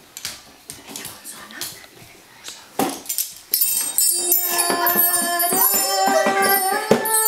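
Small hand-held bar chimes, metal rods hanging from a wooden block, tinkled by small children's hands: light clicks and a high, shimmering metallic ringing. About four seconds in, steady pitched music comes in under the ringing.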